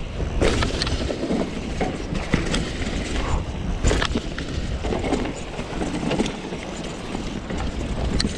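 Mountain bike riding down a muddy trail: tyres rolling over the dirt and the bike rattling over rough ground, with several sharp knocks over bumps, the loudest about four seconds in.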